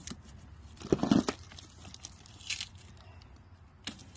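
A cardboard shipping box being opened by hand: tape and cardboard flaps tearing and crunching, loudest about a second in, with a shorter rip about two and a half seconds in.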